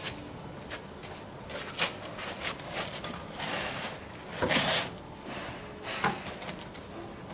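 Handling noises as a flexible vacuum hose is carried over and pushed onto a drum's interceptor lid: scattered knocks, scrapes and rustles, the loudest a short scraping rub about halfway through.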